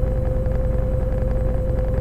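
Washing machine running in its drain-and-spin cycle: a steady motor whine held at one pitch over a constant low rumble.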